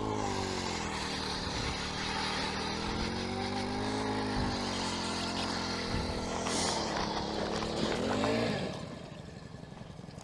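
Power ice auger boring a hole through lake ice: the motor spins up sharply, its pitch sags and recovers under load, and it cuts off abruptly near the end.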